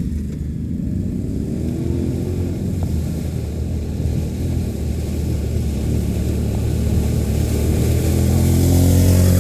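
Can-Am ATV engine running at low speed with small changes in throttle, getting louder toward the end.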